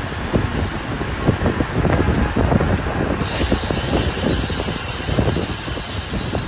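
Wind buffeting the microphone of a camera carried on a moving bicycle, a continuous gusty rumble over road and traffic noise.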